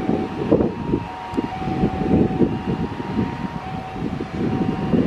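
Jet airliner's engines running on the runway, a steady distant whine, under gusty wind buffeting the microphone with an uneven low rumble.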